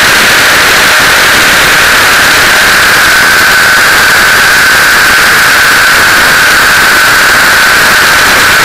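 T-Rex 600 RC helicopter in flight, heard from a camera on its landing skid: a loud, constant rushing noise of rotor wash, wind and vibration, with a steady high whine that drifts slightly in pitch.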